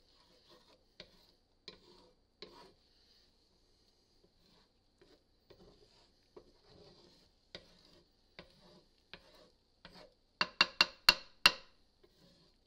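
Wooden slotted spatula stirring and scraping scrambled eggs in a cast iron skillet: soft scrapes and light taps every second or so, then a quick run of five sharp knocks of wood on the iron pan about ten seconds in.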